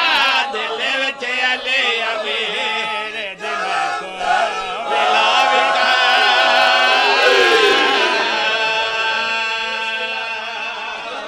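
Several men's voices chanting a devotional refrain together, loud and sustained, easing off over the last few seconds. A few sharp knocks sound near the start.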